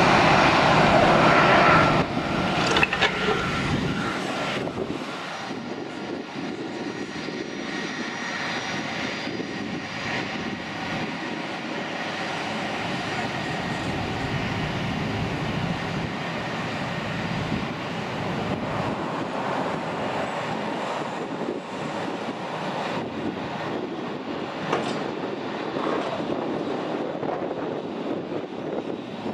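Jet engines at taxi power. An Airbus A320-family airliner's engines are loud with a steady whine for about two seconds, then the sound drops suddenly to the quieter, steady running of a business jet's two rear-mounted engines taxiing away.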